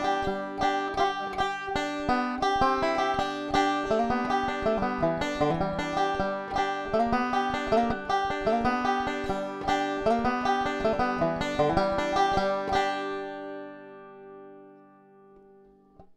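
Resonator banjo picked in quick, dense runs of notes, amplified through a piezo pickup blended with a microphone; about 13 seconds in the picking stops and the last notes ring and fade away.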